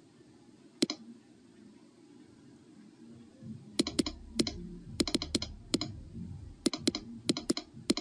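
Smart meter's microwave radio transmissions made audible through an RF meter's speaker: a single sharp click about a second in, then an irregular flurry of clicks over the last four seconds, with a low rumble underneath.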